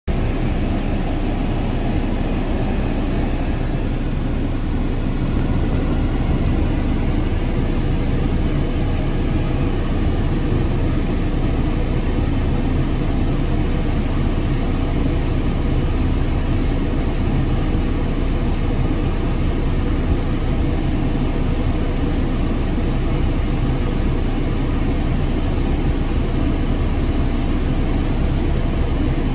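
Tracked excavator's diesel engine running steadily as it hoists an overturned tractor by a strap, a low even drone.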